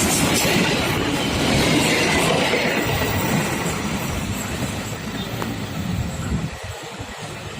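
A train passing on the line, the rumble and rattle of its cars on the rails dying away as it moves off.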